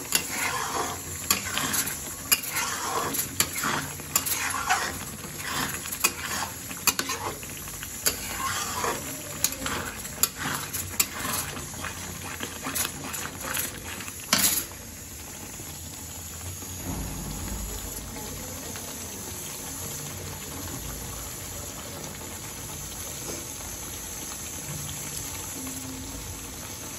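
A metal spatula stirring thick spinach gravy in a metal kadai, clinking and scraping against the pan, for about the first half. Then the stirring stops and the gravy simmers with a steady, quieter bubbling.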